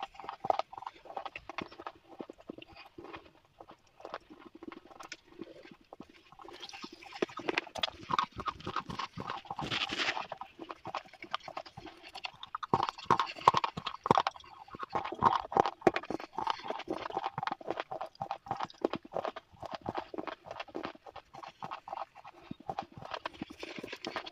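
Close-up crunching and chewing of slate pencils: a dense run of sharp crunches, busier and louder in two stretches, the first about a third of the way in and the second around the middle.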